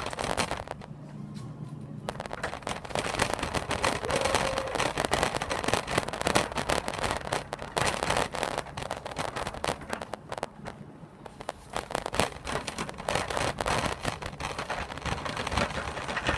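Wheeled laundromat laundry cart rolling fast across the floor, its wheels and frame clattering in a dense run of rattles that eases off for a moment partway through.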